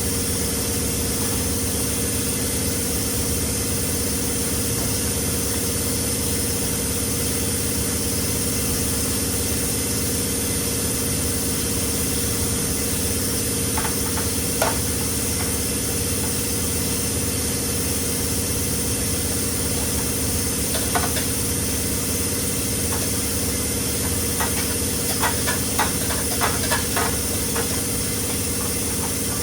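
A motor or engine comes on and runs with a steady, even hum. A few light clicks and taps come around the middle, and a quick run of taps near the end.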